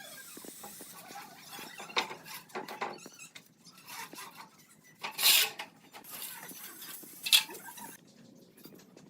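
Light workshop handling sounds: scattered knocks and clicks of wood and tools, with a short scraping rasp about five seconds in and a sharp tap a little after seven seconds.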